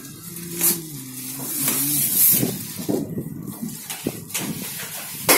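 Rustling, crackling and knocking handling noise as a Carrier inverter AC outdoor unit is shifted about on plastic packaging.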